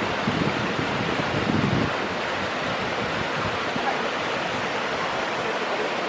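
Waterfall: a steady, even rush of water spilling down the rock face into a pool.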